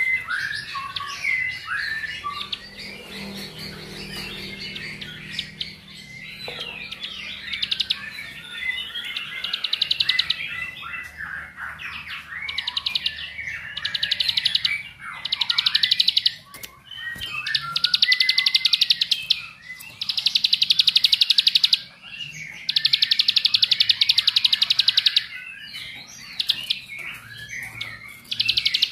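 Caged prinia (ciblek) singing. Varied quick chirping phrases come first, then from about halfway a run of rapid, high buzzing trills, each a second or two long with brief pauses between. This is the continuous 'ngebren' song that keepers use as a lure to set other ciblek singing.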